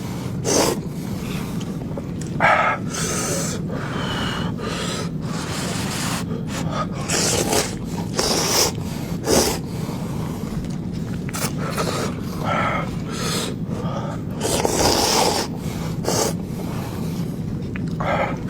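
Close-miked eating sounds: a person chewing and slurping pork fat, with irregular wet bursts and sharp breaths every second or so.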